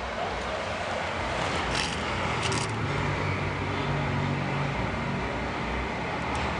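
Steady rumble of road traffic, with a low engine hum swelling about three seconds in and two faint clicks about two seconds in.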